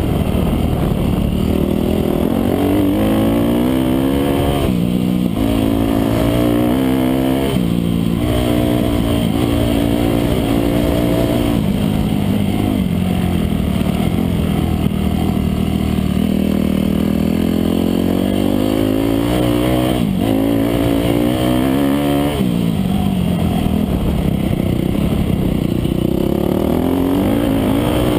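Dirt bike engine under hard acceleration in a hare scramble: the pitch climbs and then drops sharply at each gear shift, several times over. About halfway through it eases off, with the pitch sagging, then builds again through more shifts.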